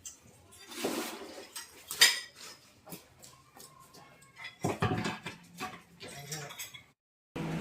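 Irregular clinking and clanking of metal striking metal, a scatter of sharp knocks at uneven spacing.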